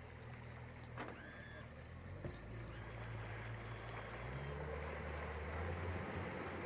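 Small-boat outboard motor running steadily at low speed, a low hum that grows louder and rises a little in pitch about four seconds in.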